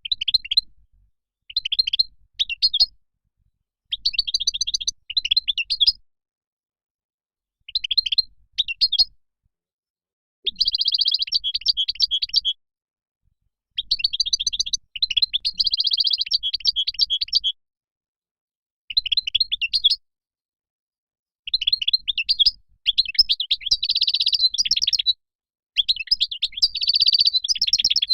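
European goldfinch song: phrases of rapid, high twittering chirps and buzzy trills, coming in bursts of one to four seconds with silent gaps between them.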